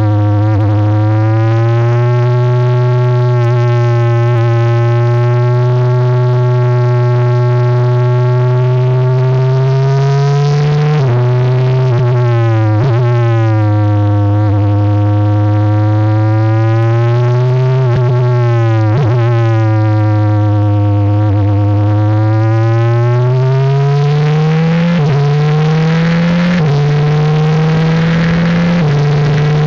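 Abarth 1.4-litre turbocharged four-cylinder engine of a Tatuus Formula 4 single-seater, recorded onboard at speed on a circuit. The engine note falls and rises through a series of corners, with several abrupt jumps in pitch at gear changes, and climbs in steps as the car accelerates through the gears near the end.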